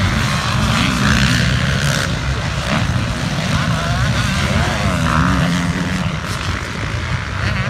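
Motocross bike engine running hard under racing load, its pitch rising and dropping several times as the throttle opens and closes, heard from the rider's onboard GoPro.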